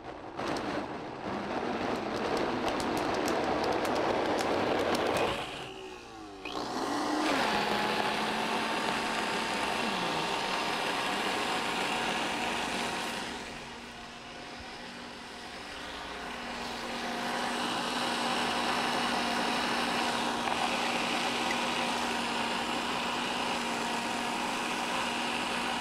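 High-powered countertop blender running, pureeing a thick pumpkin ice-cream base made with only a little water. The motor's level drops sharply and recovers about six seconds in, and sags again around fourteen seconds before coming back up.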